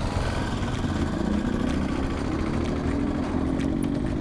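Bajaj Pulsar NS200's single-cylinder engine running through a full-system aftermarket exhaust, a steady exhaust note that wavers a little in pitch.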